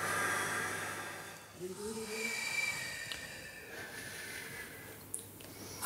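Faint vocal warm-up by a group of singers: breathy sounds and voices sliding upward in pitch about a second and a half in, on the way to a high note.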